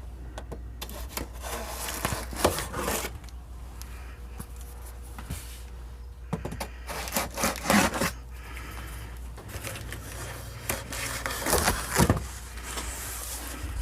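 Cardboard and foam packaging rubbing and scraping as a heavy amplifier is worked out of its box, with a few dull knocks.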